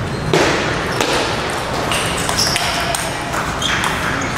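Table tennis ball clicking sharply off bats and table, several hits spaced roughly half a second to a second apart, over the steady background noise of a large hall.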